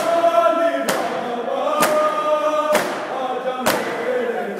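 Crowd of men chanting a noha (mourning lament) together, with sharp hand strikes of matam chest-beating in unison about once a second.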